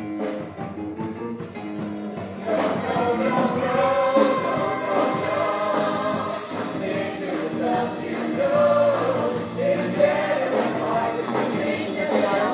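Upbeat stage-musical song with a group of voices singing over a backing track; the music gets fuller and louder about two and a half seconds in.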